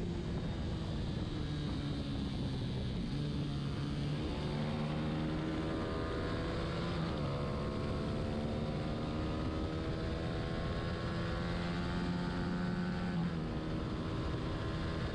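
Racing motorcycle engine heard from onboard, pulling hard and rising in pitch as it accelerates. There are two upshifts, about seven and thirteen seconds in, each dropping the pitch before it climbs again, over a steady rush of wind.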